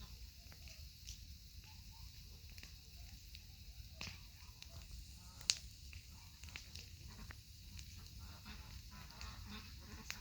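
Campfire crackling: scattered small snaps and ticks, with one sharp, loud pop about five and a half seconds in.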